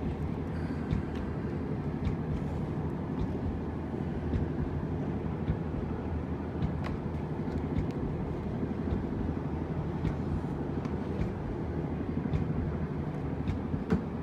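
A steady low mechanical drone, like a motor or engine running, with scattered light clicks and taps over it.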